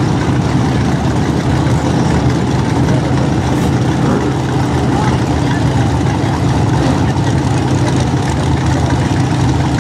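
Drag race cars' engines idling at the starting line: a loud, steady idle that holds one pitch, with no revving.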